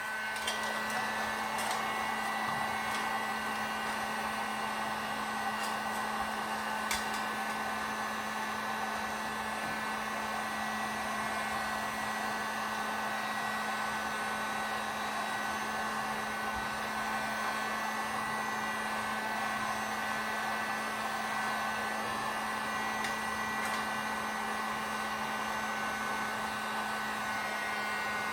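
Heat gun running steadily, blowing hot air to shrink a heat-shrink BOA clamp onto a hose: an even rush of air with a steady hum and high whining tones.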